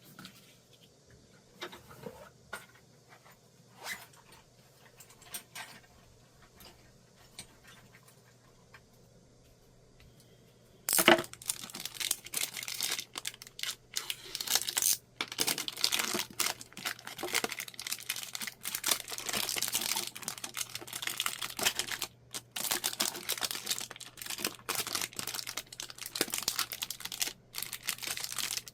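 Parcel packaging being opened by hand: a few soft handling clicks and rustles at first, then a sudden loud rip about eleven seconds in, followed by continuous crinkling and tearing of the wrapping.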